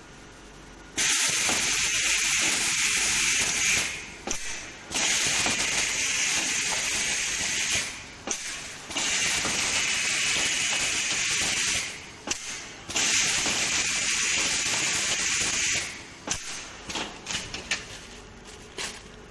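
SW-S900 automatic stretch-film soap wrapping machine working in cycles: a loud hiss lasting about three seconds comes four times with short breaks between, followed by a run of light clicks and knocks near the end.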